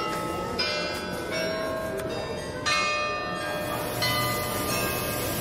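Tower bells ringing: one stroke just after the start and another about two seconds later, each ringing on with many overtones. A steady hiss comes up in the second half.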